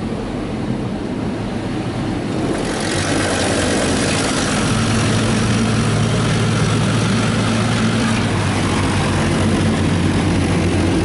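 Automatic car wash spraying water and running its brushes over a pickup truck, heard from inside the cab as a dense rushing hiss that swells about two and a half seconds in. A steady low hum joins about five seconds in.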